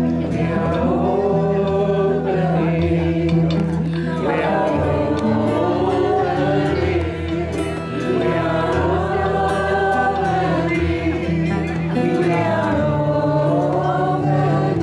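A group of voices singing a slow, chant-like devotional song, led by a woman on a microphone, over acoustic guitar accompaniment. The sung phrases swell and hold over steady low notes.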